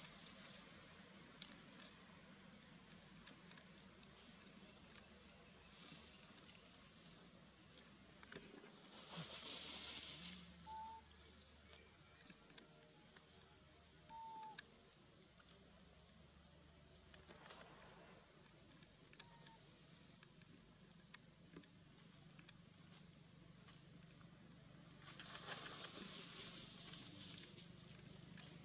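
Insects droning in a steady, high-pitched chorus, with two short noisy swishes, one about ten seconds in and one near the end.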